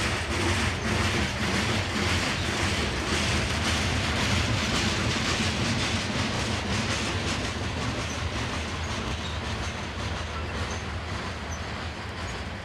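Covered hopper cars of a grain train rolling past on steel rails: a steady rumble of wheels on track, with repeated clicks as the wheels cross rail joints. The sound eases slightly toward the end.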